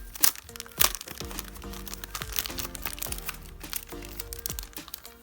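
Background music with held tones and sliding bass notes, over paper packaging crinkling and crackling as the manual and papers are handled. Two sharp crackles in the first second are the loudest sounds.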